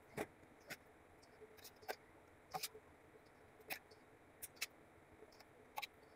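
Stainless steel ladle clinking and tapping against a steel cooking pot and a ceramic plate while dal is served: about eight light, irregular clinks.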